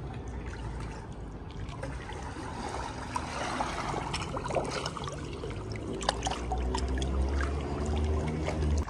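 Swimming-pool water lapping and splashing close to a water-level microphone, with a low rumble. Many small sharp splashes come in the second half as a swimmer glides in underwater and stands up in front of it.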